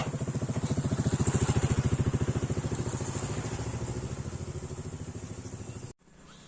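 Motorcycle engine passing, with a fast even pulse that grows louder over the first second or so and then slowly fades. It cuts off suddenly near the end.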